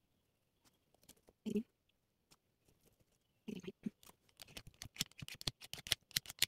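Cream cheese being spooned into a plastic tub of whipped cream: a couple of soft knocks, then from about halfway a quick, irregular run of small clicks and taps of the utensil against the tub. The hand mixer is not running.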